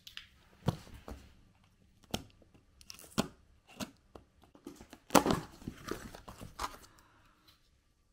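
Multitool knife blade slitting the packing tape on a cardboard box and the box being pulled open: a run of scratchy rips, cardboard crunches and small knocks, with the loudest ripping about five seconds in.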